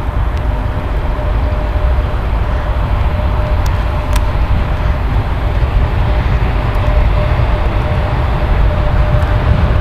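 EP1M electric locomotive hauling a passenger train slowly toward the listener over station points: a steady rumble of wheels and running gear with a faint steady hum, growing a little louder, and a couple of brief high clicks about four seconds in.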